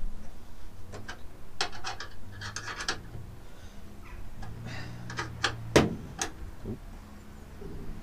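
Hand work on a van door's handle mechanism: scattered light metal clicks and scrapes as the handle's bolts are done up inside the door panel, with one sharper click about six seconds in.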